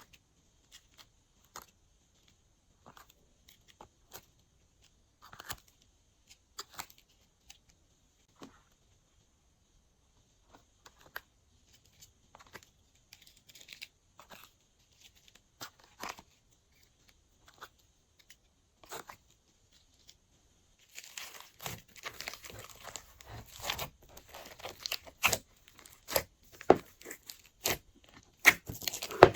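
Glossy slime being worked by hand: scattered sticky clicks and small air-bubble pops, becoming a dense, louder run of crackling pops about two-thirds of the way through.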